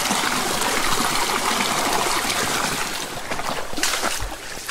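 Rainforest stream running over rocks, a steady rush of water that fades from about three seconds in. A few sharp clicks or knocks come near the end.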